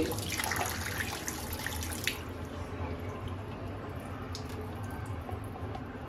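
Tap water running onto and through an upright vacuum cleaner's floor-brush head held under the stream to flush out dirt, splashing into the sink. The water cuts off suddenly about two seconds in, leaving drips and light handling of the wet plastic part.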